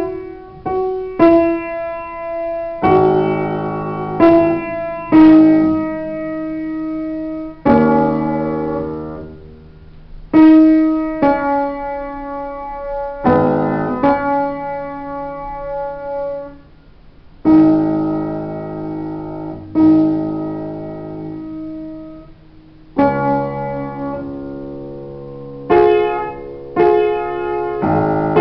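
Solo upright piano played slowly: chords and melody notes struck and held, each ringing out and fading, in phrases of a few seconds with brief breaks between them.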